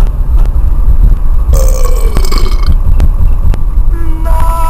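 Heavy low rumble on the microphone, with a short burp-like sound about a second and a half in and a brief steady tone near the end.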